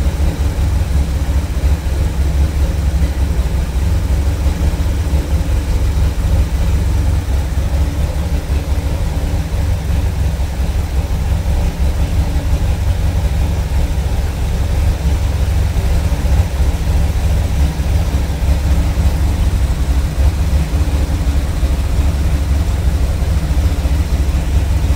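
Car engine idling steadily after a cold start, its vacuum leaks newly fixed; the idle holds an even pitch with no revving.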